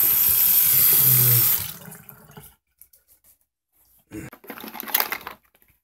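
Bathroom sink tap running steadily, then turned off about a second and a half in. A few brief rustling, handling noises follow near the end.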